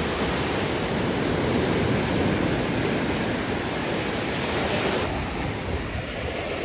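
Large sea waves breaking and foaming surf washing over the shallows: a steady rush of water.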